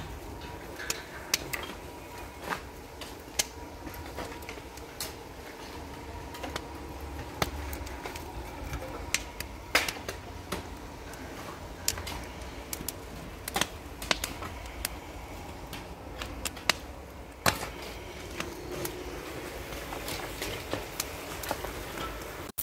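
Wood fire crackling under a cooking cauldron: irregular sharp pops and cracks, a few each second, over a low steady rumble.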